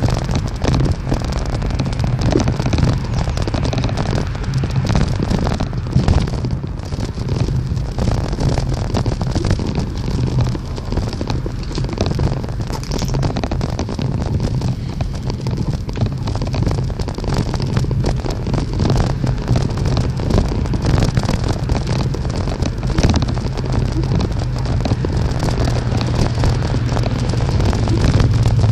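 Riding noise on a moving bicycle: steady wind rumble on the microphone with continual small rattles and crackles.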